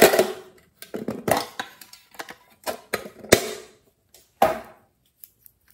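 Hands handling small novelty makeup cases: irregular clicks, taps and clatter as a case is picked up and handled. The loudest clatter comes at the start and a sharp knock a little past three seconds in.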